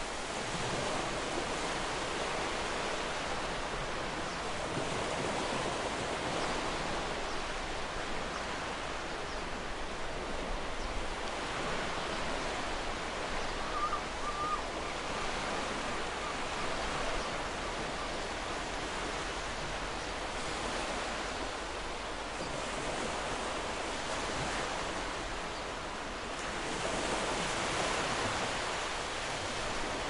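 Ocean waves breaking gently on the shore: a steady rush of surf that swells and eases every several seconds. A brief, faint cry of a distant gull about halfway through.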